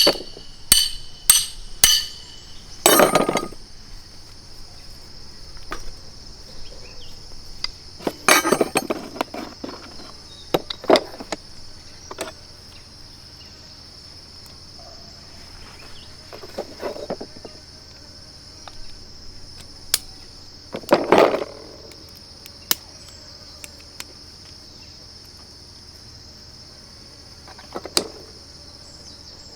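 Steady shrill drone of insects, with crickets chirping in a regular pulse above it. Over this, a quick run of sharp metallic clinks at the start, then scattered clanks and clatters of tools and metal parts being handled.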